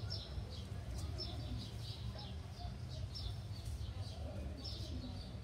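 Small birds chirping, short high falling notes repeating about two or three times a second, over a steady low rumble.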